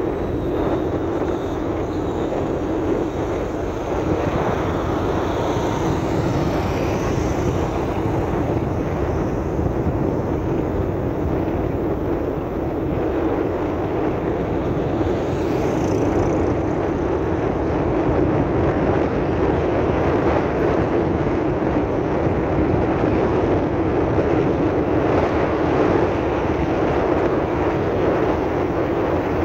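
Steady engine and tyre noise of a vehicle driving along a rough, unfinished dirt-and-gravel road.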